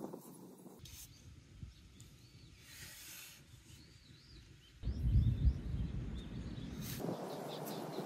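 Outdoor beach ambience that changes with each cut: small birds chirping several times in the middle, then a louder low rumble for about two seconds, then a steady hiss.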